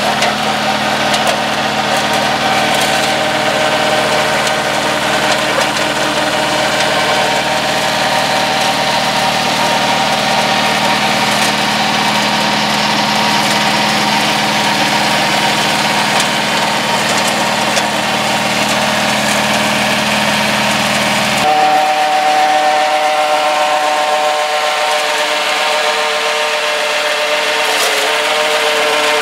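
Mini crawler tractor's 954 cc two-cylinder diesel engine running steadily under load, driving a PTO flail mower that shreds grass and brush. About three-quarters of the way through, the sound changes abruptly: the deep hum drops away and a steady whine remains.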